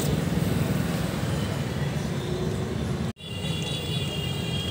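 Steady low rumble of street traffic, with no distinct events. The sound drops out abruptly for a moment about three seconds in.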